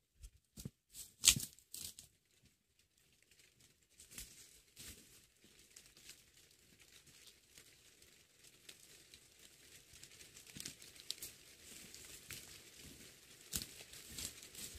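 A few handling clicks and knocks, then rain beginning to patter and steadily building up into a dense crackle.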